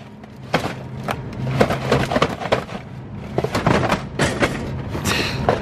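Cardboard box of frozen Bagel Bites knocking and scraping against a metal shelf in irregular clatters as it is forced into a space too small for it, over a steady low hum.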